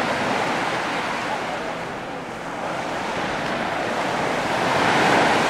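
Mediterranean surf breaking and washing up a sand beach, a steady hiss of water that swells to its loudest about five seconds in as a wave comes in.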